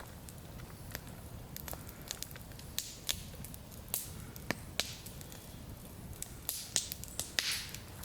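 Campfire wood crackling, with irregular sharp snaps and pops and a few brief hisses.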